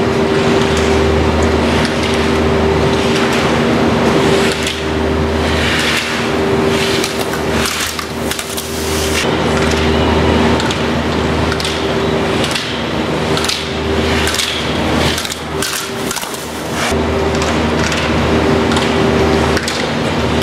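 Skis scraping and hissing on the snow of an indoor slope, with scattered sharp knocks such as slalom poles being struck as skiers pass through the gates, over a steady machinery hum.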